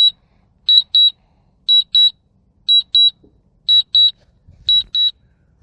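Mavic 2 Zoom drone controller beeping its return-to-home warning: high double beeps, one pair about every second, sounding while the drone flies itself home after losing connection.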